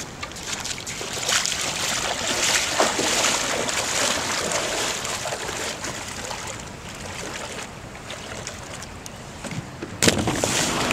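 Steady rush of river water with a few scattered knocks and scrapes. About ten seconds in it cuts suddenly to a louder, steadier rush of water flowing through a dam.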